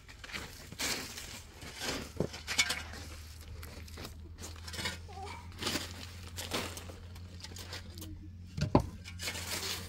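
Irregular rustling and crinkling with scattered light knocks as material is handled, and one louder thump near the end, over a steady low hum.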